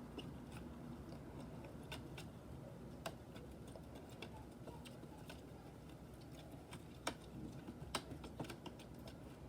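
Faint, irregular clicks and light taps of a slime container being handled and shaken to mix the glue and liquid, a little more frequent near the end.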